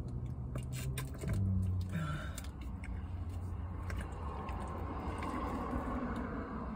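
Scattered clicks and crinkles of a thin plastic water bottle being gripped and drunk from, over a low steady hum in the first two seconds.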